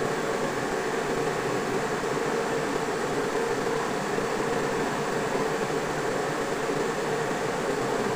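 Metal lathe running at a steady speed, its motor and headstock gearing humming evenly as the chuck spins.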